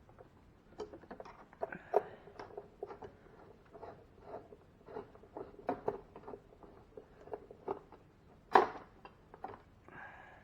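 Irregular small clicks and ticks of a screwdriver and screws being worked out of a refrigerator ice maker's plastic housing, with one louder knock about eight and a half seconds in.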